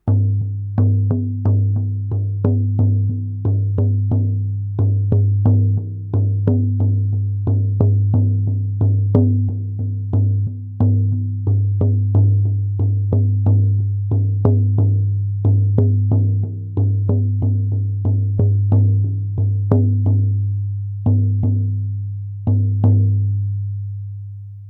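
Handmade deer-hide shamanic frame drum struck with a beater in a fairly even beat of two or three strikes a second. Each stroke is a deep boom that rings on. The last strike, near the end, is left to fade.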